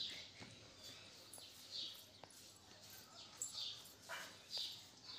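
Fingers picking nits out of hair, with faint rubbing of the strands and a few fingernail clicks. Over this come about four short, high chirps.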